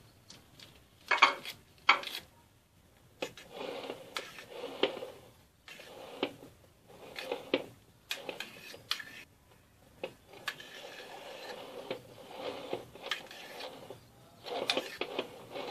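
A spoon spreading and smoothing cream inside a metal cake ring, in repeated scraping strokes with clinks against the metal. Two sharp clinks about a second in.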